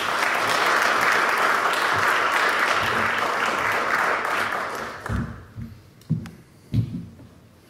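Audience applauding in a lecture hall, dying away about five seconds in, followed by a few dull knocks.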